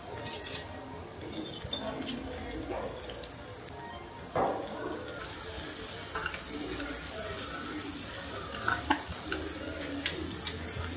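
Pot of kimchi stew simmering with a steady bubbling. There are a few sharp knocks and plops as green onions and tofu go into the pot, the loudest about four seconds in and a pair near the end.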